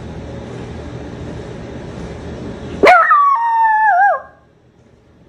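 Small dog giving one long howl about three seconds in, lasting just over a second, its pitch wavering and sliding down at the end. Before it, a steady background noise that stops as the howl begins.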